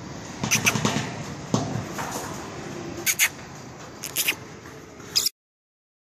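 A small parrot on a corrugated metal sheet roof, making short clusters of sharp clicking and scratching sounds about once a second over steady outdoor background noise. The sound cuts off abruptly near the end.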